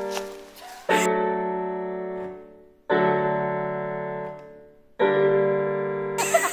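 Slow solo piano music: sustained chords struck about every two seconds, each ringing and fading away before the next. A burst of noise cuts in just before the end.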